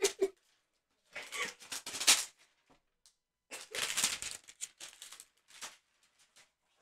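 Rustling and scraping with scattered light clicks from cardboard hanger boxes and trading cards being handled, in two spells of a second or two each.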